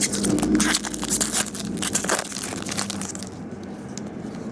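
A baseball card pack's foil wrapper being torn open and crinkled by hand: a quick run of crackles for about the first two seconds, then softer rustling as the cards are handled.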